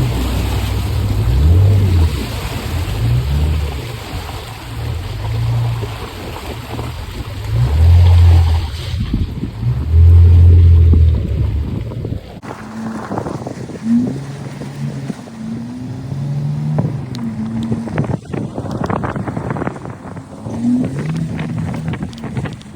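Jeep Wrangler engine running off-road, with heavy wind buffeting on the microphone through the first half. About halfway the sound changes abruptly: the wind drops away and the engine note rises and falls as it revs, with scattered knocks.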